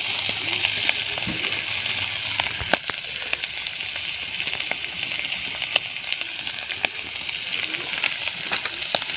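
Shamuk (snail) meat, called oysters by the cook, frying in hot oil in a kadai: a steady sizzle with scattered small spits and pops.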